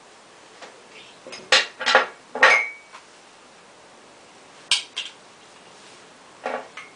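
Short clinks and knocks of hard objects handled on a table: a quick run between about one and three seconds in, one leaving a brief ringing tone, then a few single knocks near the end.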